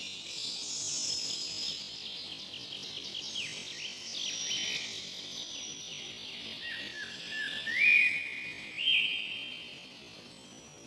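Several songbirds chirping and singing over one another: a dense mix of short high whistles, trills and chirps, with two louder calls near the end.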